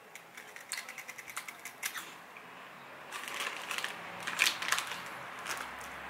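Crunchy chocolate biscuit snack being chewed close by: a quick run of crisp crackles, then a few louder crunches about three to five seconds in.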